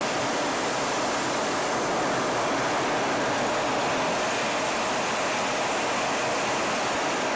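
Steady rushing noise inside the cockpit of an IAI Kfir fighter jet in flight, its turbojet engine and the airflow over the canopy blending into an even roar without change.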